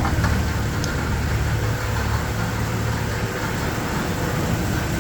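Jeep Wrangler TJ engine idling steadily, with a single sharp tick about a second in.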